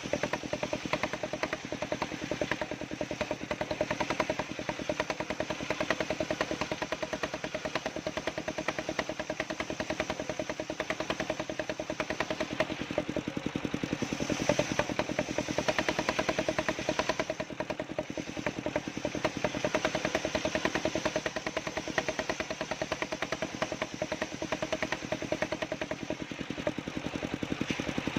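Engine of a homemade wood-cutting sawmill running steadily with a fast, even beat.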